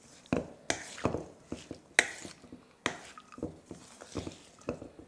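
Wooden spoon stirring a crumbly ground-meat and feta filling in a stainless steel bowl: the spoon scrapes through the mixture and knocks against the metal bowl in irregular clacks, about one or two a second.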